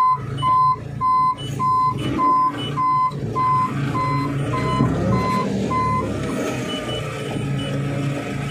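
Forklift's reverse alarm beeping about twice a second over the running engine, the sign that the machine is backing up. The beeps stop about six seconds in, and the engine keeps running.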